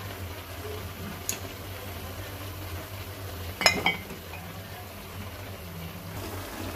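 Pot of chop suey vegetables simmering in their sauce, over a steady low hum. There is a faint click about a second in, and a sharper metal clink with a brief ring a little past the middle, a utensil striking the pot.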